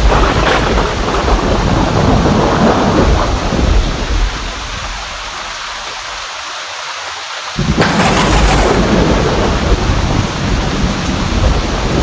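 Heavy rain with thunder. The deep rumbling dies away after about four seconds, leaving the rain hiss, then a sharp thunderclap breaks about eight seconds in and rolls on as rumbling.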